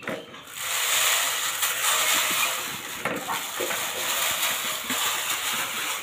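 Chicken feed poured from a small plastic container into a red plastic hanging tube feeder: a steady, loud rattling hiss of the grains starting about half a second in and running for about five seconds.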